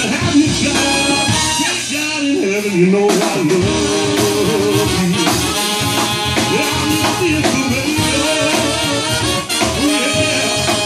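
Live horn-driven rock band playing: trumpets, trombone and saxophone over a drum kit, bass and keyboard.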